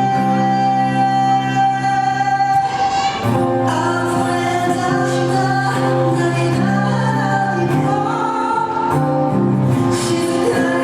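A singer performing an original song live with instrumental backing: one long held note for the first two and a half seconds or so, then the melody moves on over sustained low bass notes.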